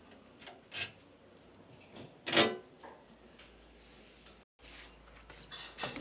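The removed metal front panel of a washing machine being handled, giving a few short scrapes and rubs. The loudest scrape comes about two and a half seconds in, with lighter rubbing near the end.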